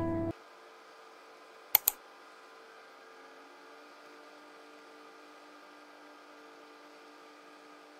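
Piano music cuts off right at the start. What follows is a faint steady hum. A little under two seconds in come two sharp clicks in quick succession: a stylus tapping on a tablet's glass screen.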